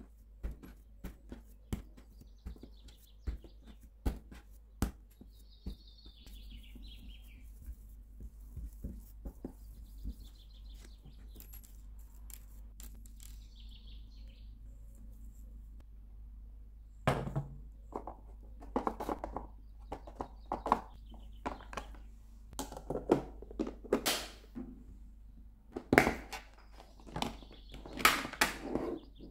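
Hands shaping pizza dough into a ball on a worktop, with light taps and clicks, while birds chirp in the background. A run of louder knocks and clatter fills the second half.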